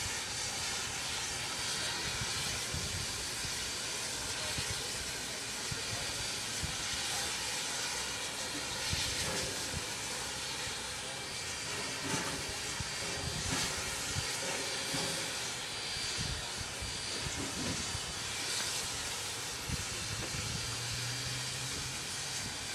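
Aberdeen & Rockfish No. 40 steam locomotive standing still and hissing steam steadily, with scattered low thumps and knocks underneath.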